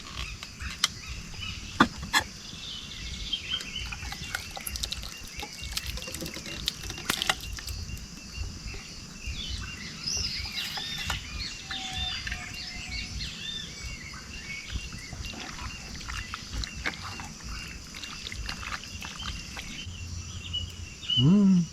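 Many small birds chirping and calling throughout, with scattered sharp clicks and a low background rumble.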